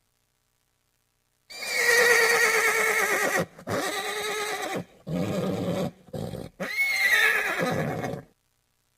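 Horse whinnying: a long, quavering whinny, then a few shorter, lower calls with brief breaks, then a second whinny that starts high and falls in pitch.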